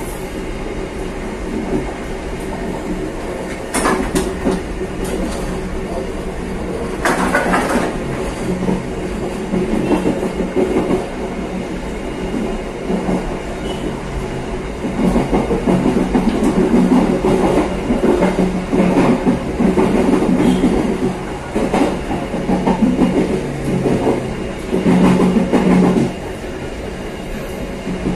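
Passenger train running along the track, heard from its last carriage: a steady rumble of wheels on rail, with a few sharp knocks early on and repeated bursts of louder clatter through the second half as the wheels pass over rail joints.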